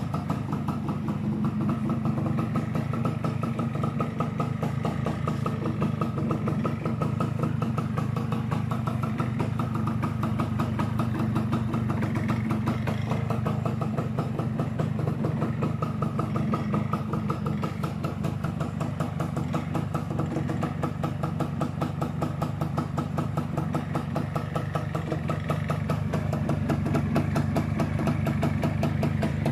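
Yamaha SS110 underbone motorcycle engine idling steadily.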